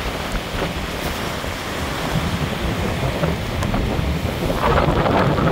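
Rough storm surf breaking and washing around a concrete jetty and onto the beach, with wind buffeting the microphone in an uneven low rumble. The rush of the surf grows louder near the end.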